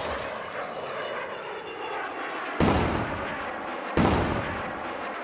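Loud boom-like sound effects. A rushing boom is already fading, then two more sudden booms hit about two and a half and four seconds in, each dying away over a second or so.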